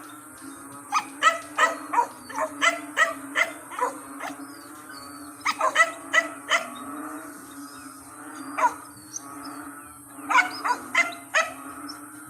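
Frogs calling in a dense chorus: loud, short croaks come in clusters of several a second, with lulls between, over a steady low drone from many more frogs and a constant high hiss.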